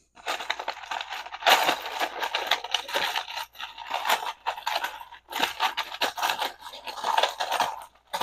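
Loose plastic Lego bricks clattering and scraping as a hand rummages through them in a small cardboard box, with a few brief pauses.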